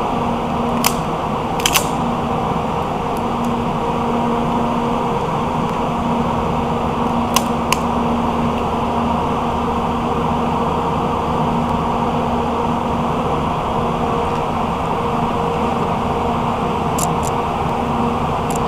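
Steady machine hum with a low droning tone over a hiss, broken by a few light clicks, some in pairs: about a second in, around seven seconds in and near the end. No gunshots.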